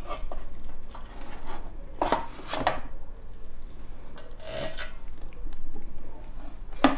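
Metal utensils scraping and rubbing against a steel roasting pan as a whole roasted nutria is lifted out and set down on a wooden cutting board, in several short scrapes, with a sharp knock near the end.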